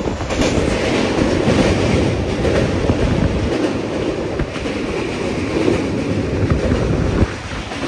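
Passenger train running across a steel truss bridge, heard from beside the coach window: a steady, dense rail noise that eases off near the end.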